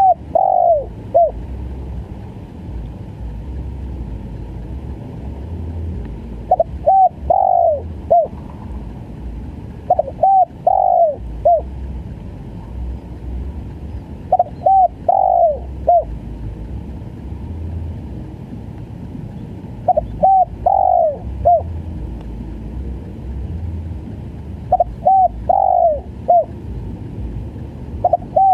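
Spotted dove (tekukur) cooing in the stuttering 'gagap' style: short phrases of three or four falling notes, a phrase about every five seconds, over a low steady rumble.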